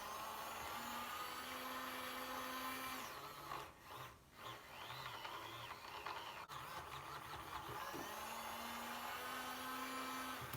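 Small electric motor of a mini makeup brush washing machine whirring as it spins the brushes, its pitch shifting now and then. It cuts out briefly twice about four seconds in, then runs on.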